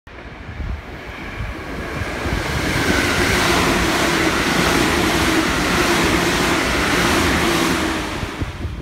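Electric multiple-unit train running through a station at speed without stopping. It is a rush of wheel and running noise that builds over the first three seconds and holds steady with a low hum, then fades quickly near the end.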